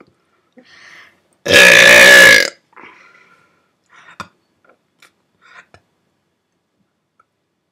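A person's loud, drawn-out burp lasting about a second, with faint breaths and mouth clicks before and after it.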